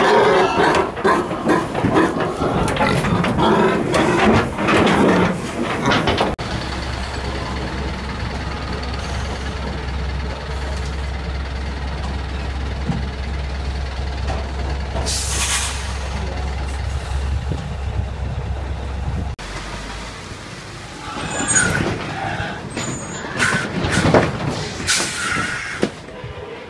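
Livestock lorry's diesel engine idling with a steady low hum, and one short hiss of air brakes partway through. It opens on a few seconds of loud, busy sound and ends with a series of short, sharp hisses and knocks from trucks.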